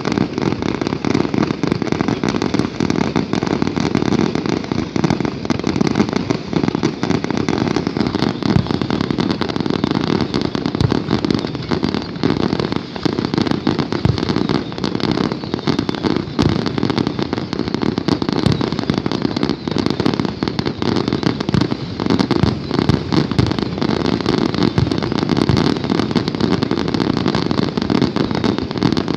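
Fireworks display: a continuous, dense barrage of bangs and crackling that goes on without a break.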